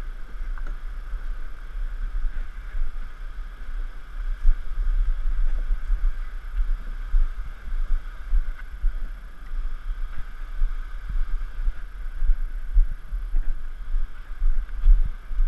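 Plastic canoe hull dragged over dirt and rock, heard through the hull as an uneven scraping rumble with small knocks, over a steady high drone in the background.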